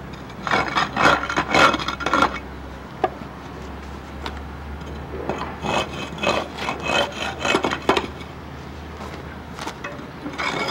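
A hand tool scraping dirt and grit off the metal frame of a storm-drain inlet, cleaning the grate seat. The rapid, gritty strokes come in three bursts of scraping with short pauses between them.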